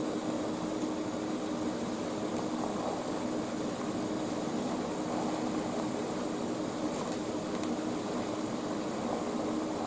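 TIG welding arc running steadily, a constant hissing buzz with a low hum, as nickel filler rod is fed into a joint between a steel bar and cast iron.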